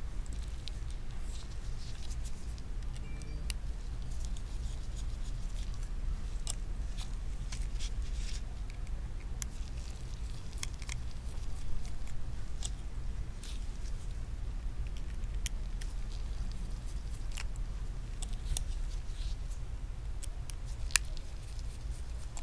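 Scattered light metallic clicks and ticks as a precision screwdriver turns out the tiny screws holding the back plate of an iPhone 6s Plus display, and the display is handled. A steady low hum runs underneath.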